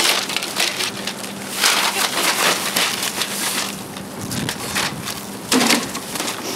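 Irregular crinkling, rustling and crunching of plastic packaging and rubbish being handled, densest in the middle, with a short sharp burst near the end.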